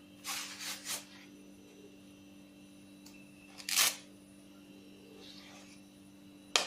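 Banana leaf being cut to remove its stem: three short crisp strokes in the first second, a louder one near the middle and a sharp click near the end, over a faint steady hum.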